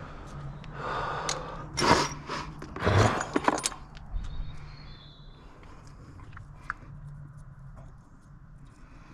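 A person's heavy, forceful breaths, four or five in the first few seconds, during a strain at a stubborn plastic clip, followed by small clicks and rattles of handling parts.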